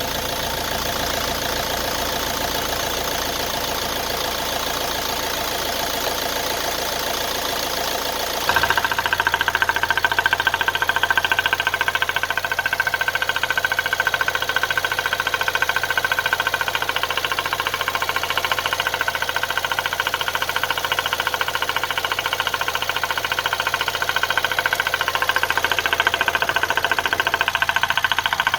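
Nissan Qashqai 1.6 dCi four-cylinder diesel engine idling with a steady, rapid knocking clatter, which the owner takes for piston slap. About eight seconds in the sound turns suddenly louder and sharper, then holds steady.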